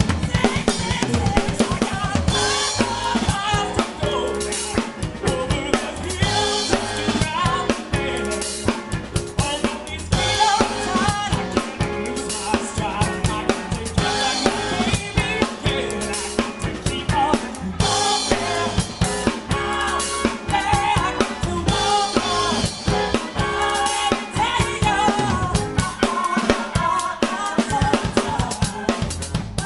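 A band playing an up-tempo soul song, with a drum kit's kick and snare driving a steady beat over a bass line.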